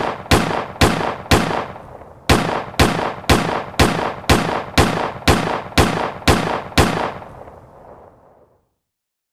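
Gunshots from a mobile shooting game, fired singly and evenly at about two a second, each with a long echoing tail. There is a short pause about two seconds in, and the shots stop about seven seconds in as the last echo fades away.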